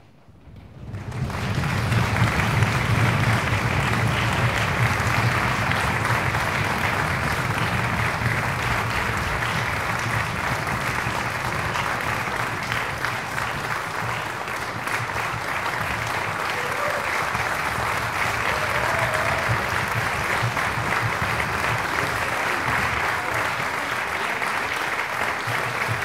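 Audience applauding: the clapping swells quickly about a second in and then holds steady.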